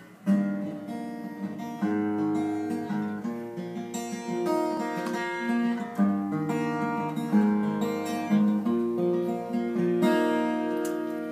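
Steel-string acoustic guitar being played: chords picked and strummed, ringing on and changing every second or two.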